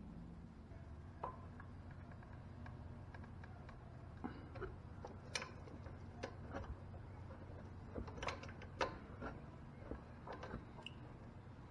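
Faint, irregular clicks and light metal taps of hand tools being handled, about a dozen, the loudest a little after eight seconds in, over a low steady hum.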